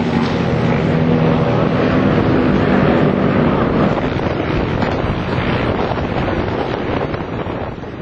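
Motorcycle engines running at a race circuit, mixed with wind buffeting the microphone. An engine tone is clearest in the first couple of seconds, and the whole noise slowly gets quieter toward the end.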